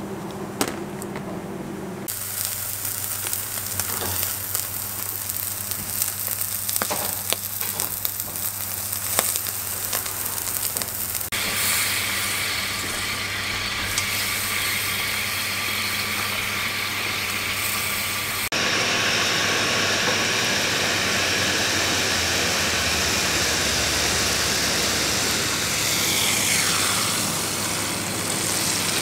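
Beef Dallas steak sizzling on a gas grill: a steady hiss with scattered crackles and a low steady hum. The sound shifts abruptly in level and character three times.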